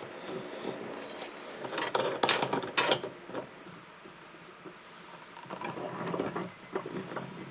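Workshop handling noises from woodworking: scattered knocks, taps and scrapes of wood and tools, loudest in a cluster about two to three seconds in.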